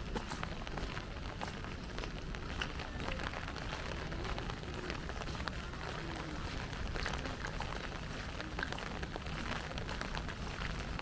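Light rain falling, with scattered small ticks of drops over a steady low background noise.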